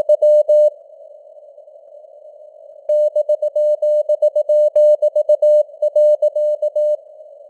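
Morse code (CW) sent at 18 words per minute as a single steady tone keyed in dots and dashes over simulated radio band noise. The keying stops shortly after the start, leaving only the hiss for about two seconds, then resumes until near the end.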